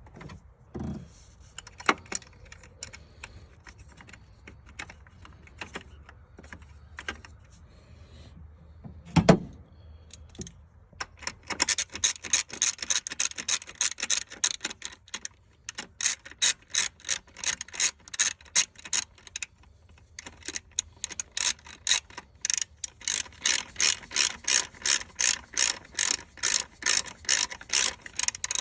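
Socket ratchet clicking as the 8 mm bolt holding the purge valve is run in: scattered clicks and a knock at first, then from about ten seconds in a long run of evenly spaced clicks, a few a second, broken by two short pauses.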